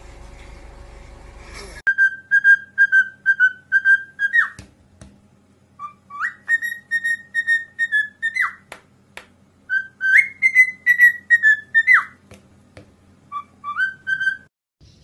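Cockatiel whistling a tune: four short phrases of quick, clear repeated notes, some opening with an upward slide, with pauses between them.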